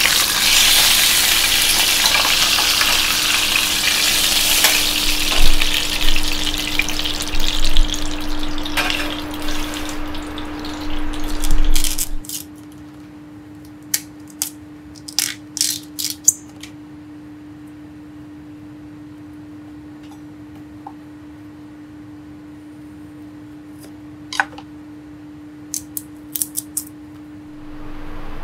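Duck meat sizzling in oil in a frying pan, turned with tongs; the sizzle cuts off suddenly about twelve seconds in. After that, over a steady low hum, two short clusters of sharp snaps and clicks as the sheaths are peeled from nemagaridake bamboo shoots with a knife.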